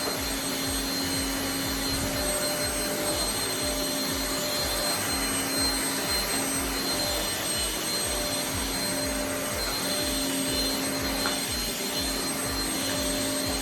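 Deerma VC811 cordless handheld vacuum cleaner running steadily, a high whine over the rush of its motor and suction.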